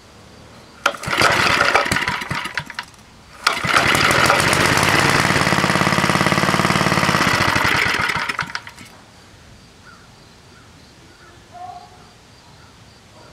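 Briggs & Stratton Golden Boy 2 hp single-cylinder engine firing up and running for about two seconds before it dies, then catching again and running for about five seconds before it dies out. It is starving for fuel: it is not getting gas through its uncleaned carburetor jet.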